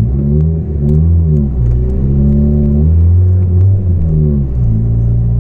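Volvo 440 engine revved about three times while standing still, then dropping back to a steady idle near the end. It sounds loud and beefy through a broken, leaking exhaust that has come apart.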